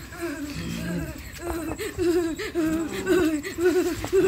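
People laughing: quick, repeated pitched bursts of voice that grow louder about a second and a half in, mixed with some talk.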